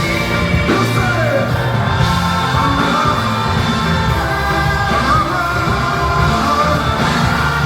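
Live gospel praise music: a full band with heavy bass and drums, with a lead voice singing and shouting over it.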